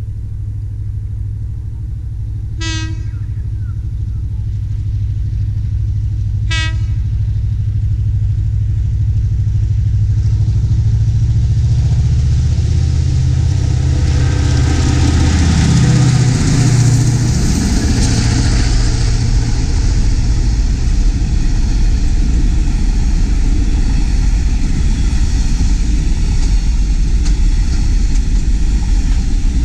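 Diesel freight train approaching and passing close by. The locomotive's engine drone grows steadily louder, with two short horn toots about three and seven seconds in. The locomotive goes past a little after halfway and the engine pitch drops, then wood chip wagons roll by with a steady rumble of wheels on rail.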